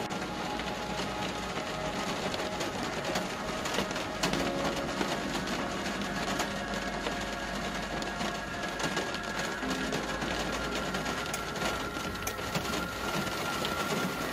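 Rain falling on a moving car's windshield and roof: many small drop hits over a steady low hum of engine and road.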